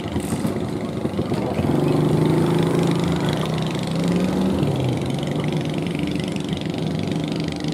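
Fishing boat engine running steadily over the wash of surf; about halfway through its pitch drops as the throttle eases.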